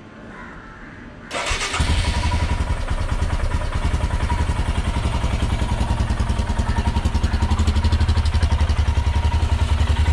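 Royal Enfield Himalayan's single-cylinder engine started on its electric starter about a second in, catching almost at once and settling into a steady idle with an even pulse. This is the first start after an oil change, idling to circulate the fresh oil.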